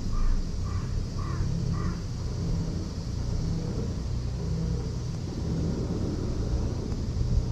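A bird calling five times in quick succession over the first two seconds, above a steady low rumble.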